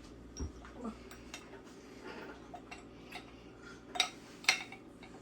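Metal meat grinder parts clinking and knocking as the cutting blade is fitted onto the auger in the housing: scattered light clicks, with two louder knocks near the end.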